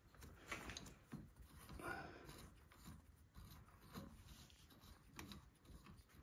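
Faint, scattered clicks and rubbing of hands working small steel parts (bolts and collars on a lathe's idler pulley mechanism); otherwise near silence.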